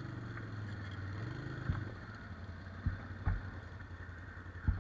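A quad's engine running steadily at low speed as it crawls through tall grass, with a few short knocks, about once a second, from the machine jolting over rough ground.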